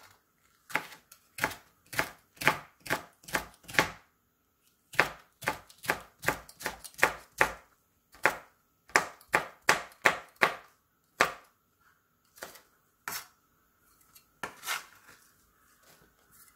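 Chef's knife slicing a red chili pepper on a plastic cutting board: quick knocks of the blade on the board, about three a second, in runs with short pauses, thinning to a few scattered knocks near the end.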